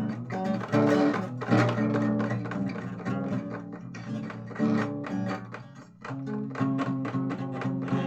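Guitar music, plucked and strummed notes with a bass line, without audible singing; it dips briefly about six seconds in before carrying on.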